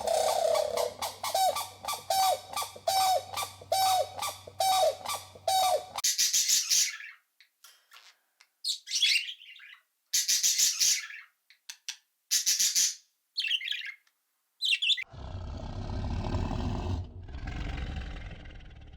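Birds calling: a call repeated about every 0.7 seconds for the first six seconds, then scattered high chirps and squeaks. About fifteen seconds in, a deep, rough animal sound begins and fades slowly.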